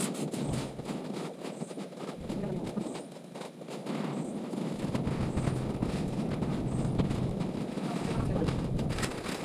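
Outdoor noise with a run of sharp crackles and snaps, and wind buffeting the microphone, its rumble growing about halfway through.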